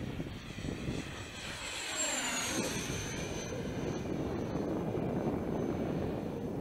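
Freewing A-4 Skyhawk RC jet's 80 mm electric ducted fan running, a high whine over rushing air. The whine drops in pitch about two seconds in, then holds steady as the sound grows louder.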